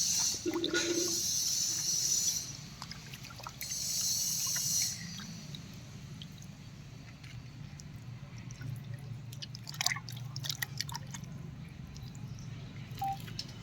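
Pot of rice boiling over a wood fire: bubbling, sloshing water. Two bursts of high hiss come in the first five seconds, and scattered light clicks come later.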